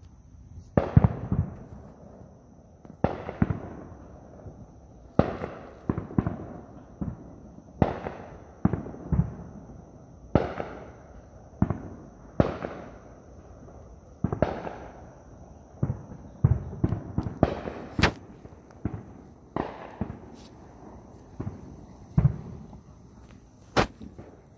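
Fireworks going off in a steady series, a bang every second or two, each followed by a rolling, fading echo.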